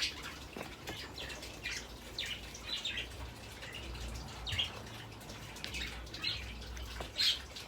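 Birds chirping and singing in many short, quick calls, over a faint low rumble.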